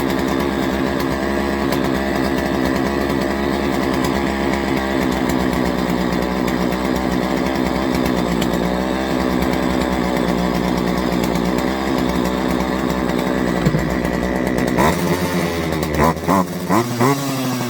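Craftsman 40cc two-stroke chainsaw engine running freshly repaired, idling steadily. About fifteen seconds in the throttle is blipped: three or four short revs, then a rise and fall in pitch near the end.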